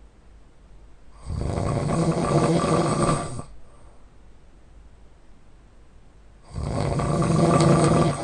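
A man snoring loudly: two long snores, each about two seconds, about five seconds apart.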